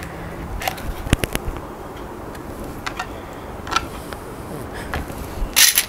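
Hot-glue crafting at a table: scattered light clicks and taps as a glue gun is used and plastic kundan stones are handled and pressed onto a transparent fibre sheet. A quicker run of sharper clicks comes near the end.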